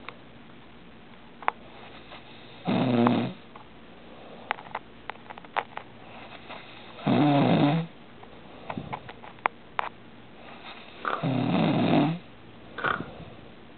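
A sleeping man snoring: three snores about four seconds apart, each lasting up to about a second, with a few faint clicks between them.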